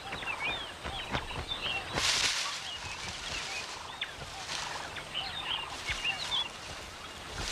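Birds calling in short, scattered chirps, with a brief rush of noise about two seconds in and a few sharp knocks.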